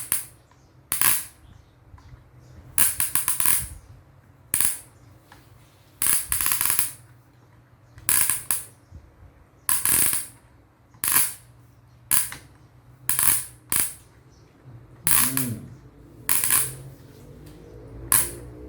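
Plastic ratchet of a hand-cranked toy crane's winch clicking in short bursts, about one a second, as the hook is wound up to lift a load.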